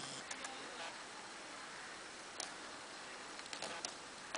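A few faint, scattered clicks as an Alaskan malamute mouths a plush toy, over a steady hiss.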